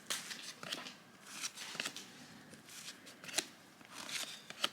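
Cardboard trading cards handled and slid against one another, a run of irregular light flicks and swishes, about eight in all.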